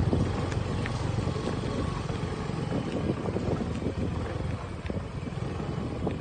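Wind buffeting the phone's microphone: an uneven, gusting low rumble.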